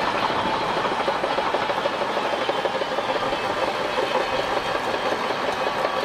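Shantui crawler bulldozer at work, a steady dense clatter of its steel tracks over the running diesel engine.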